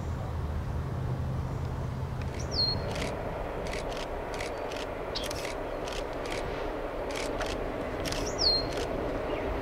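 A bird gives a short, sharp falling call twice, about six seconds apart, among scattered short high clicks. A low engine hum ends after about two and a half seconds.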